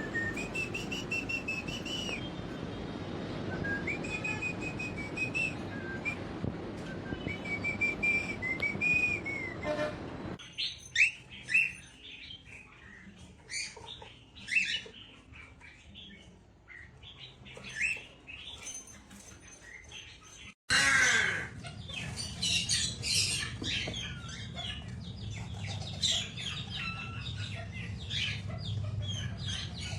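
Parrots chirping and whistling. At first high whistled notes glide over a steady background hum; after about ten seconds come scattered short chirps, and in the last third a busy run of chirps.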